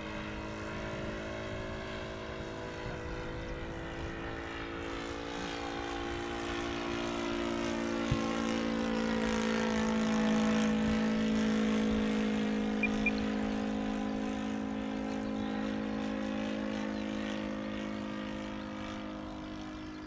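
Engine of a radio-controlled Seagull de Havilland Gipsy Moth scale biplane model running steadily in flight. It grows louder as the model passes overhead about halfway through, then fades as it flies off. The engine is running smoothly, sounding all right.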